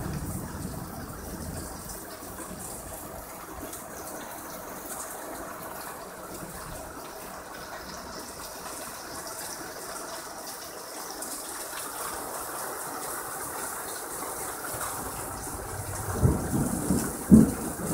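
Heavy rain pouring down steadily in a thunderstorm. Near the end, thunder rumbles in loudly with a couple of sharp peaks.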